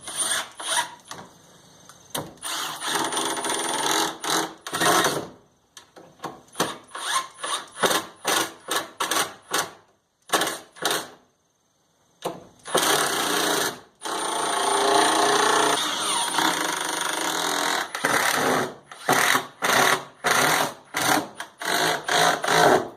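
Cordless impact drivers, a conventional impact driver and a Milwaukee Surge hydraulic impulse driver, run side by side in many short trigger bursts. There are two longer runs of several seconds, one a couple of seconds in and one about halfway through, with brief pauses between.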